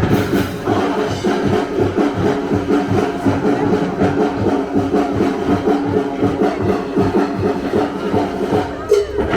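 Live music with a steady, fast drumbeat, several beats a second, and held notes sounding over it.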